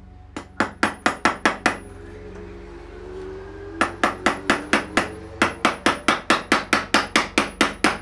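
Cast iron hammerhead striking a nail into a block of wood with quick, repeated blows. A burst of about six blows is followed by a pause of about two seconds, then a steady run of about four blows a second.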